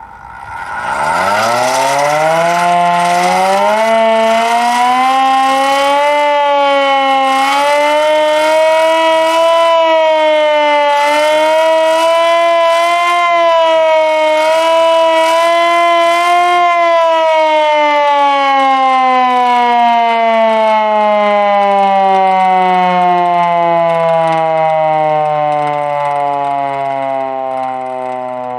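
Secomak 447 siren winding up from rest to a loud wail within about three seconds, its pitch rising and falling slightly several times. About two-thirds of the way through it starts winding down in a long, slowly falling tone.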